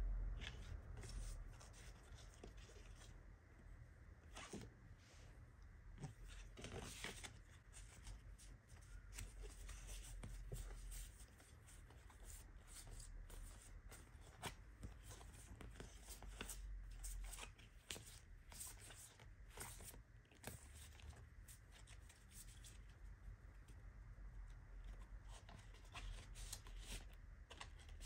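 Faint rustling and flicking of a stack of paper postcards being handled and leafed through one by one, with light paper slides and taps scattered throughout.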